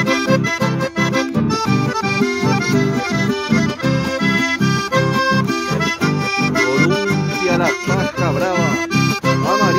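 Diatonic button accordion playing a chamamé tune, a melody over a steady, evenly pulsing bass-and-chord beat.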